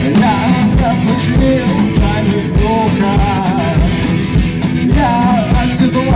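Garage rock band playing an improvised instrumental passage: drums with regular kick-drum hits and cymbals, bass and guitar, with a wavering, bending lead melody line over the top.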